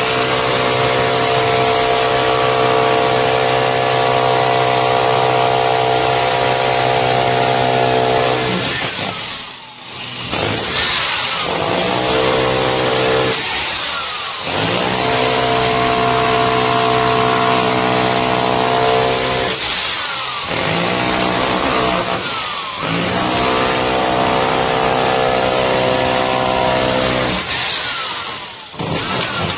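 Dong Cheng corded SDS-Plus rotary hammer drill running in about five bursts, the longest about nine seconds, stopping briefly between them.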